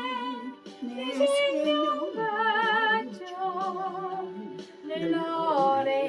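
A woman singing a Korean gospel song (복음성가) over a karaoke-machine backing track, holding long notes with vibrato.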